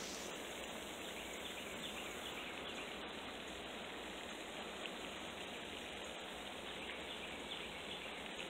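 Steady outdoor background noise with faint, brief high chirps scattered through it.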